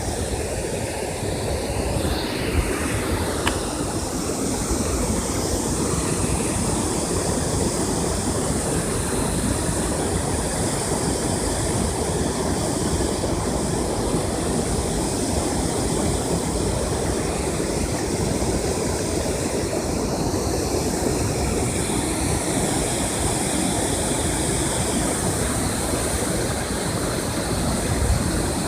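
Steady rush of water pouring through a dam, an even roar that holds at one level.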